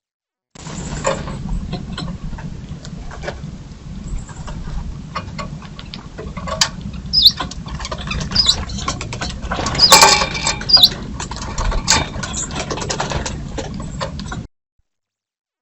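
Birds at a feeder: many quick pecking and scratching clicks, a few short high chirps, and a louder flurry about ten seconds in, over a low steady rumble.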